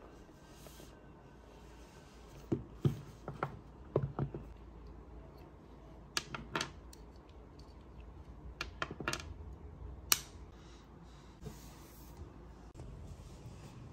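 Irregular sharp clicks and taps in short clusters of a few a second, with pauses between, from a new MacBook Pro being handled and its keys or trackpad pressed. The loudest is a single click about ten seconds in.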